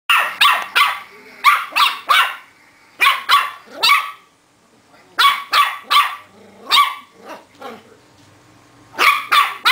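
Rat terrier puppy barking in quick bursts of three or four sharp, high barks, with short pauses between bursts.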